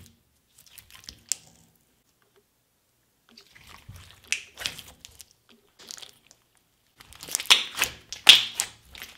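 Clear slime loaded with gold leaf being squeezed and pressed by hand, giving sticky crackling and squishing sounds. It starts a few seconds in with scattered small crackles and grows louder and denser near the end.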